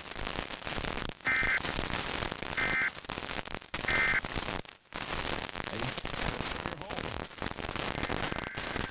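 Radio static hiss with three short bursts of Emergency Alert System SAME end-of-message data tones, each about a third of a second long and a little over a second apart, signalling the end of the tornado warning broadcast.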